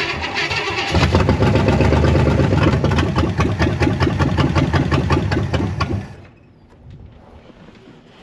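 Barn-find big-block V8 cranking on the starter, catching about a second in on starting fluid sprayed into its 750 double-pumper carburettor, and running loud and rough for about five seconds before it dies as the fluid burns off, with no fuel in the fuel bowl.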